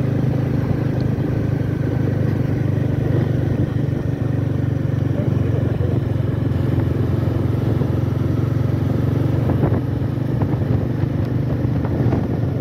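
Motorbike cruising at a steady speed, heard from the pillion seat: an even engine hum with rushing road and wind noise.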